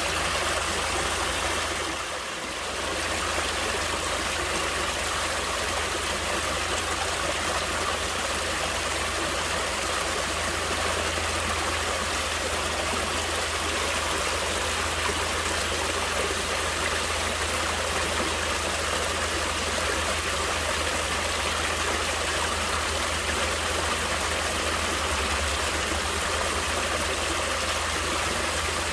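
Natural stream water flowing, a steady rushing and trickling that dips briefly about two seconds in.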